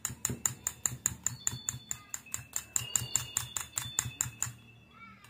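A utensil beating egg-and-flour batter in a metal bowl: a quick, even run of clinks against the bowl at about six a second, stopping about four and a half seconds in.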